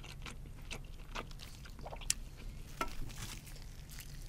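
Close-miked chewing of deep-fried, shell-on shrimp: soft crunches and small wet clicks, scattered irregularly.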